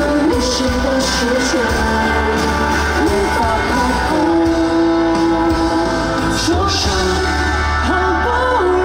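Pop song performed live by a band with a singer, who holds several long notes.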